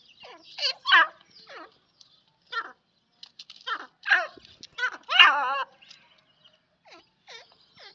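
Grey francolins calling: a string of short, squeaky calls with gliding pitch, the loudest a longer wavering call about five seconds in.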